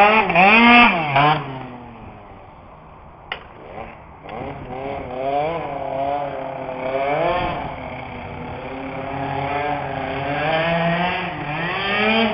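Tuned two-stroke Piaggio Zip SP scooter, rated about 21 hp, revving as it rides: the engine pitch rises and falls again and again. It is loudest in the first second or so, fades to a lull with one sharp click a few seconds in, then returns in repeated rising sweeps.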